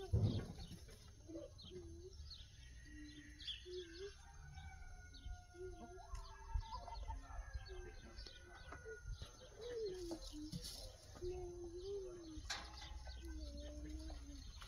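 Birds calling: a string of short, wavering low calls with thinner high chirps over them. A faint low rumble runs underneath.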